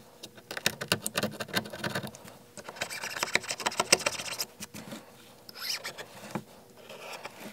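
Shattered back glass on an iPhone 12 crackling and grating as it is chipped and scraped off the frame with a pointed metal tool. There is a run of quick clicks, then a dense stretch of grating about three seconds in, and a few sharper clicks near the end.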